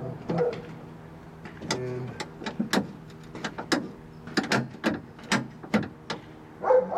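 Newly fitted long-type door lock cylinder of a 1967 Cadillac being worked with its key, the lock mechanism clicking sharply again and again as it is tested. The lock is working.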